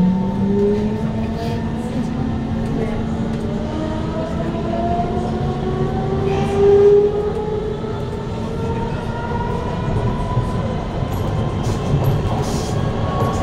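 Kawasaki Heavy Industries C151 metro train's GTO-VVVF traction inverter and motors whining in several tones that climb steadily as the train accelerates, over the rumble of the car on the track. A brief louder swell comes about seven seconds in.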